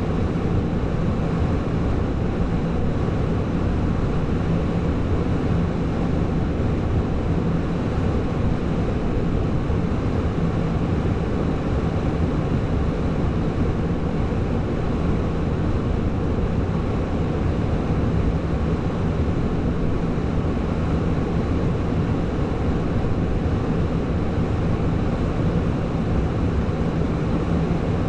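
A diesel engine running steadily at a constant low rumble with a steady hum, with no revving or change throughout.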